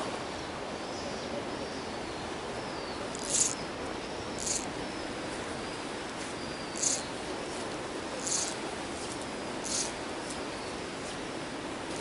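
Steady outdoor hiss with faint, thin bird calls, and five short, high, hissy bird chirps spaced one to two and a half seconds apart.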